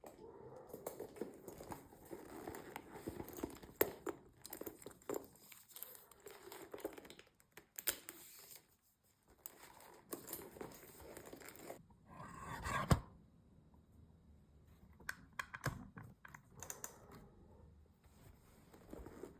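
Packaging and a purse being handled: crinkling, rustling and tearing sounds with scattered sharp clicks and taps. About two-thirds of the way through there is one louder rustle that ends in a sharp click.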